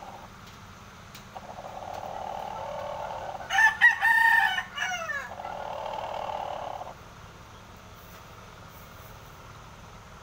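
A gamecock crows once, a loud call of about two seconds with a falling note at the end.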